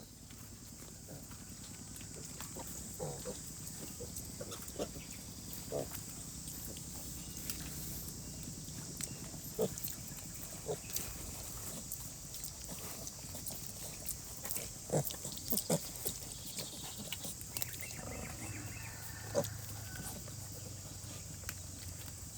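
A sow and her piglets giving occasional short, soft grunts at rest, over a steady hiss of rain.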